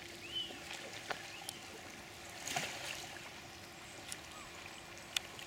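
Kayak paddles dipping into calm canal water, with soft splashes and light clicks over a steady outdoor hush.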